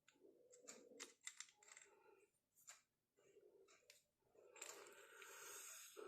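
Near silence with faint handling noises of small drill parts: a few light clicks, then a soft rustling scrape starting about four and a half seconds in.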